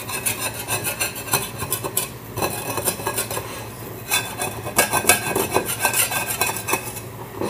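A utensil scraping and clinking against a plate in quick, irregular strokes as the plate is scraped clean.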